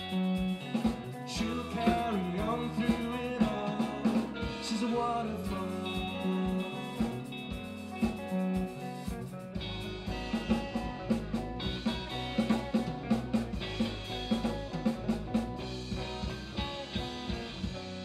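A small live rock band playing: electric guitars, bass guitar and drum kit, with the drums and low end heavier from about ten seconds in.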